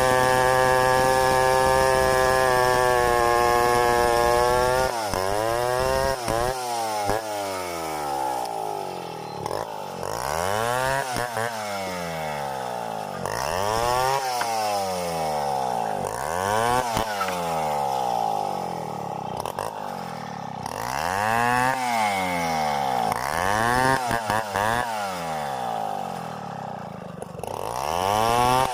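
Stihl 070 two-stroke chainsaw running at a steady high speed for about five seconds. After that its engine speed rises and falls over and over, revving up and dropping back every couple of seconds.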